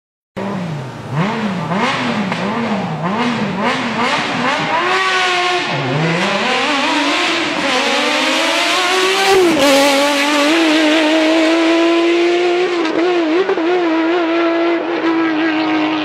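BMW inline-six racing engine in an Opel Kadett C hillclimb car, blipped up and down about twice a second, then revving up hard as the car pulls away. The pitch climbs, drops once at an upshift partway through, and is then held at high revs.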